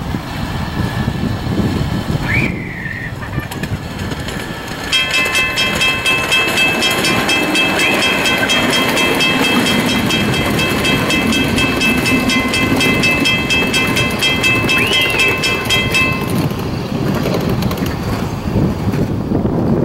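A small train running on track, with rumble and fast even clicking from the wheels. About five seconds in, a steady high-pitched whine of several tones sets in, holds for about eleven seconds, then stops.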